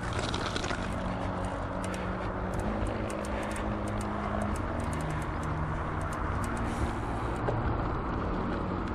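Bicycle riding noise heard from a bike-mounted camera: a steady rumble of tyres and wind on the microphone, with scattered small sharp clicks through the middle.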